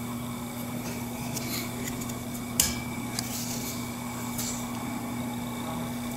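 Handling clicks from the CZ Scorpion EVO 3 S1 carbine's folding stock being folded down. The loudest is one sharp click about two and a half seconds in with a brief metallic ring. A steady low hum runs underneath.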